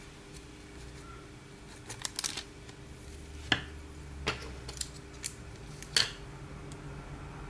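Wooden coloured pencils being handled and set down on the work surface: a series of light, sharp clicks, the loudest about three and a half and six seconds in.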